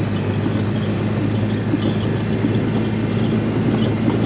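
A vehicle engine running steadily with a constant low hum, with some faint rattling over it.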